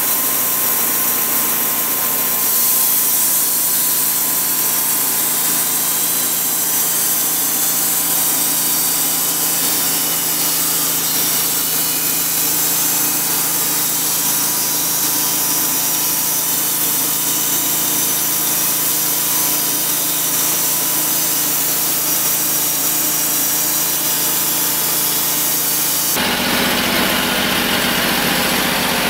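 Homemade bandsaw sawmill cutting along a hemlock log, its 22-horsepower V-twin engine running steadily under load. Near the end the sound changes abruptly, with more low engine rumble.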